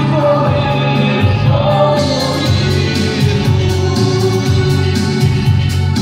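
A song with a choir singing over accompaniment, in long held notes.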